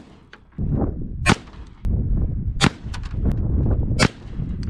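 DPMS AR-15 rifle firing .223 full metal jacket rounds: three sharp shots evenly spaced, roughly one every second and a half.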